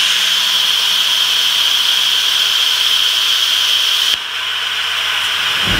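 Hypertherm Powermax 85 plasma cutter's arc cutting through metal plate on a CNC table: a loud, steady hiss with a high-pitched edge. It gets somewhat quieter a little past four seconds in and cuts off at the very end.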